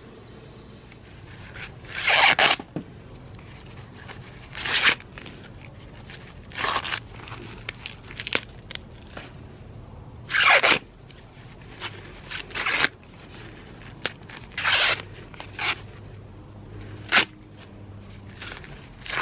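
Green husks being ripped by hand off ears of fresh sweet corn: a series of sharp tearing rips, about one every two seconds.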